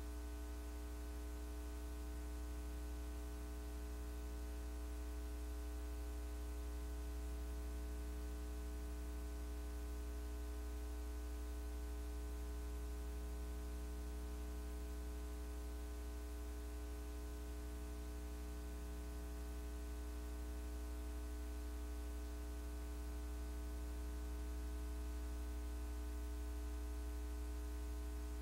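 Steady electrical hum with a constant hiss over it, unchanging throughout.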